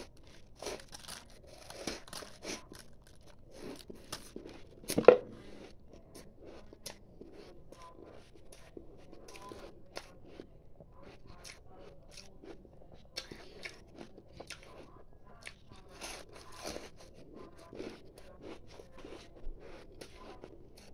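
A person biting and chewing a powdery block of ice close to the microphone: irregular crisp crunches, with one much louder crunch about five seconds in.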